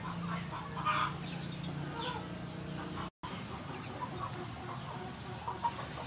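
Chickens clucking, then, after a cut about halfway, hot oil frying cheese-filled potato balls, with a hiss of sizzling coming up near the end.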